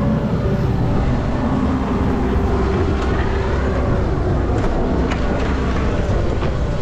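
Vehicle engine running steadily, a continuous low rumble with a few light clicks in the second half.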